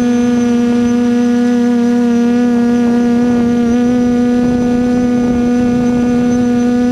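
Quadcopter drone's motors and propellers humming steadily at one even pitch, with a low rush of air beneath.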